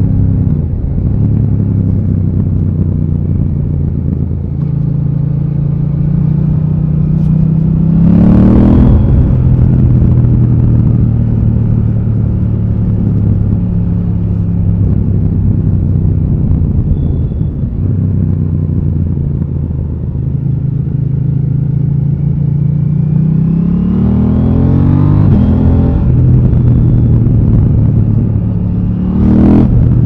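KTM 890 Duke R's parallel-twin engine running steadily on the road, its revs climbing twice under acceleration, about a quarter of the way in and again past the three-quarter mark, with a short sharp rev spike near the end.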